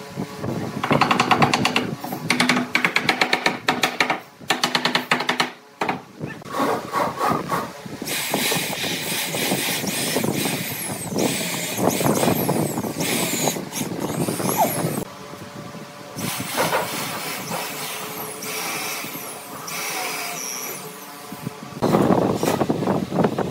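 A corded electric drill boring into pine, running in stretches and stopping between them. It is preceded by a few seconds of rapid rattling and knocking.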